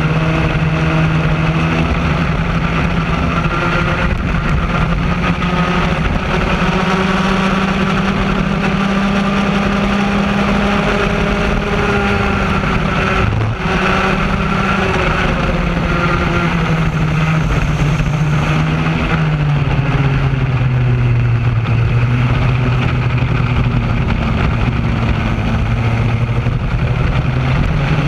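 The two-stroke engine of a Raket-class racing kart, heard onboard while racing at speed. Its pitch rises and falls with the throttle, dips sharply about halfway through, runs lower for a stretch later on, and climbs again near the end.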